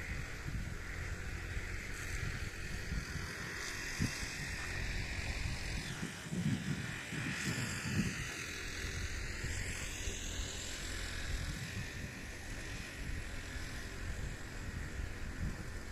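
Wind buffeting the microphone in uneven gusts over a steady high outdoor hiss, with a faint whistle-like tone that dips and rises about halfway through.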